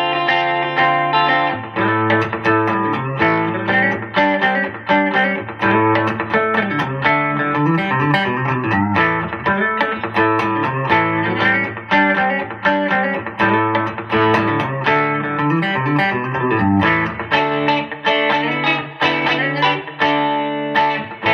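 Semi-hollow, 335-style electric guitar played through an amplifier: a continuous run of picked notes and chords, several notes a second, with no pauses.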